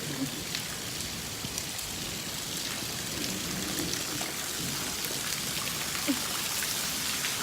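Heavy rain falling: a steady hiss with scattered drop ticks.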